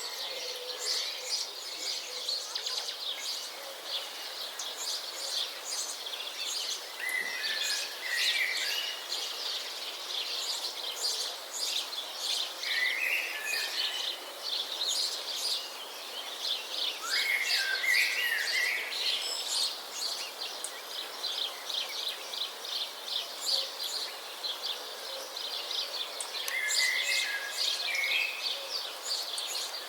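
Several wild birds chirping and singing outdoors: a steady chatter of quick high chirps, with louder warbled phrases a few times, over a light background hiss.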